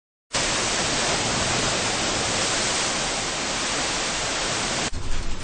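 Storm-force wind and blown spray hissing steadily across a ship's open deck. Near the end the sound turns uneven and gusty, with a low rumble and surges.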